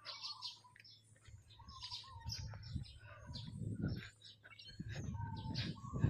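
Small birds chirping and tweeting in many quick, short calls, over a low rumble that comes in about a second in and grows louder in the second half. A brief bump near the end.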